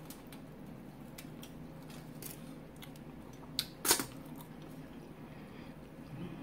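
Close-up eating of saucy chicken wings: quiet chewing with small wet mouth clicks over a low steady hum. A little before four seconds in come two sharp, wet smacks close together, the second the loudest, as sauce-covered fingers are licked.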